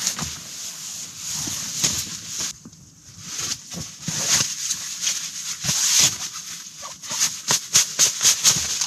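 Nylon tent fabric and bedding rustling as they are handled and arranged, in irregular swells, with a quick run of short rustles about four a second near the end.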